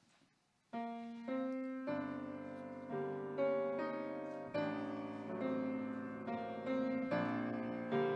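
Piano starting about a second in and playing slow, sustained chords, soft background music for a time of prayer.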